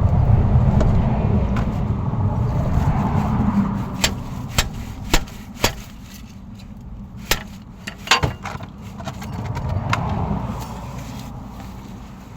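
Vehicles passing on a nearby road: a low rumble that swells and fades twice. In the quieter stretch between them come a dozen or so sharp, separate clicks and knocks.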